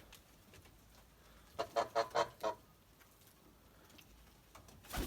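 Nikolaev pigeons in a loft: a quick run of four or five short, honk-like calls about two seconds in, then a sudden noisy burst right at the end.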